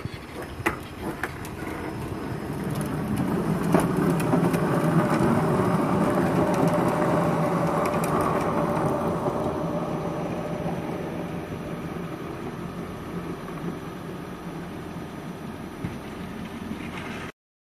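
Skateboard and wheeled trash cart rolling on a blacktop driveway: a steady rumble of wheels on asphalt that swells over the first few seconds, then slowly fades as they roll away, and cuts off suddenly near the end. A few clicks and knocks at the start as the plastic bin is tipped back onto its wheels.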